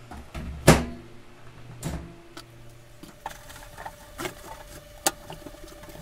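Handling of a microwave oven on a workbench: a sharp knock under a second in, the loudest sound, and a second knock with a short ringing about two seconds in. Then light scattered taps and rubbing as a paper towel wipes the casing, over a faint steady tone.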